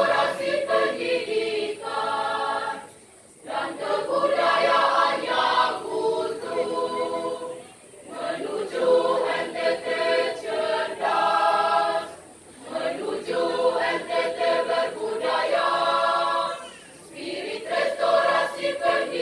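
High-school choir singing unaccompanied, in phrases of about four to five seconds with brief pauses between them.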